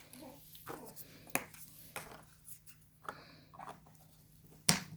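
Light scattered clicks and taps of a plastic Mashems toy container being handled and worked open, with one sharper, louder click near the end.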